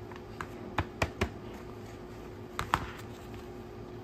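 Fabric being tugged taut in a plastic machine-embroidery hoop, giving a few short, sharp snaps and clicks: three close together about a second in and two more about two-thirds of the way through.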